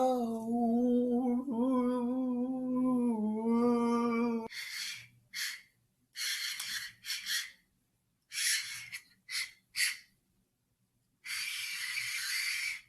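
A man's voice holding a hummed note with slight wavers for about four and a half seconds. Then a series of short hissing mouth noises follows, seven or so brief ones and one longer hiss of about a second and a half near the end.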